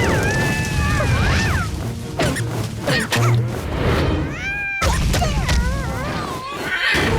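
Animated cartoon soundtrack: background music mixed with slapstick sound effects, with many short sliding, squeaky pitched noises and a few sudden knocks.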